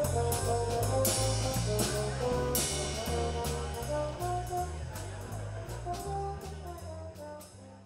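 Background music with a steady beat and a stepping bass line, fading out toward the end.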